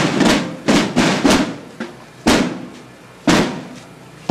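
Marching drums struck together in a slow procession beat: three strokes about half a second apart, then one stroke about every second, each ringing out briefly.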